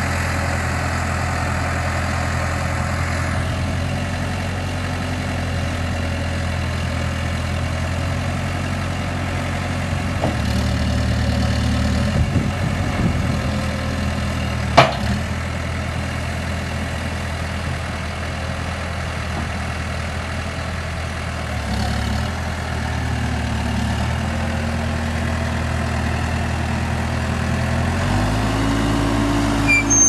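Case 590 Super M backhoe's four-cylinder turbo diesel engine running at idle, its note shifting a few times, with a single sharp knock about halfway through.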